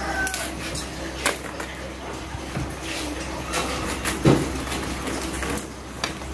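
Wires and plastic flexible conduit being handled and pushed into a circuit breaker panel: scattered clicks and knocks, the loudest about four seconds in, over a steady low hum.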